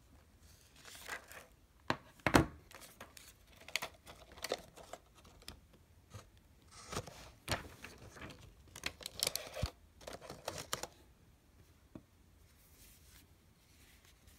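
Plastic wrap crinkling and rustling while a tablet is handled and lifted out of its cardboard box, with scattered clicks and one sharp knock about two seconds in. The handling noise stops about eleven seconds in.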